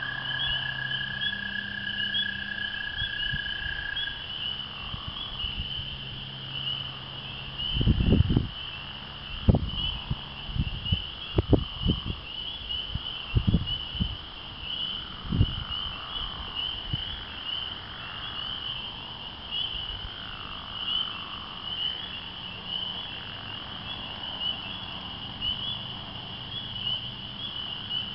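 Dense chorus of spring peepers, their high peeps overlapping without a break, with the long steady trill of an American toad that stops about four seconds in. Between about eight and sixteen seconds a handful of loud low thumps break in.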